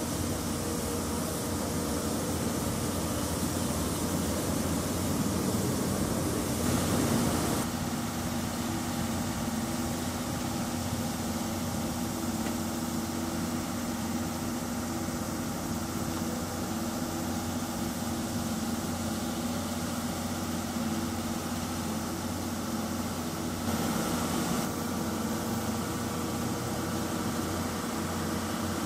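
Steam locomotive D51 498 and its train standing at the platform, giving off a steady mechanical hum: a low drone with a few faint steady tones over a hiss. The hiss swells briefly about seven seconds in and again about twenty-four seconds in.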